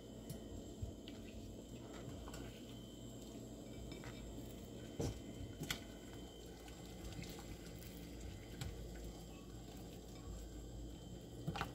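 Chopped ingredients being put into a pot of heating water: a few faint clicks and small splashes over a low steady hum.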